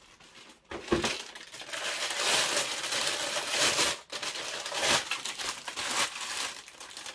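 Clear plastic bag rustling and crinkling as it is handled and lifted out of a cardboard box, with a knock about a second in and a brief pause near the middle.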